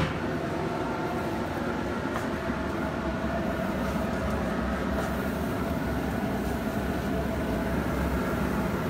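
Steady blowing rumble of a wood pellet grill running at full heat, about 500–550°F, with a single knock at the start.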